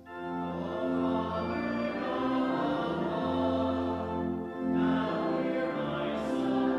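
Church organ playing a hymn with voices singing along in sustained chords over a steady bass line, pausing briefly between phrases near the start and about four and a half seconds in.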